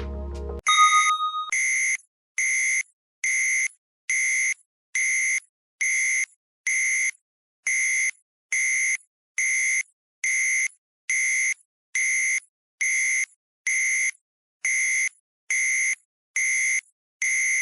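Countdown timer alarm going off: simple electronic beeps, each a steady high tone about half a second long, repeating evenly a little faster than once a second, starting just after the music cuts off about a second in.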